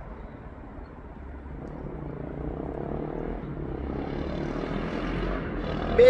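A steady engine drone that grows louder from about two seconds in.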